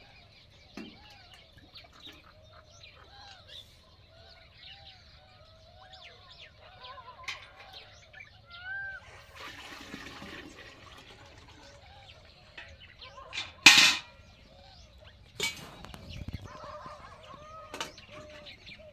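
Birds calling: many short, repeated calls throughout, with one loud, sharp sound about fourteen seconds in and a smaller one about a second and a half later.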